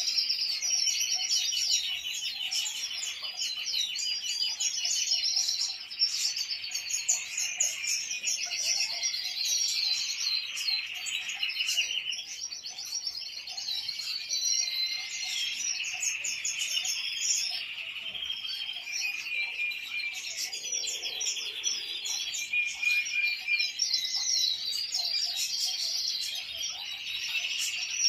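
European goldfinches singing together: a continuous stream of fast twittering notes and buzzy trills with no break.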